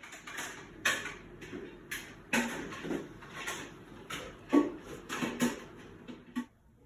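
Kitchen handling of the sourdough starter's container and utensils: a string of knocks and clinks with scraping between them. The sounds stop shortly before the end.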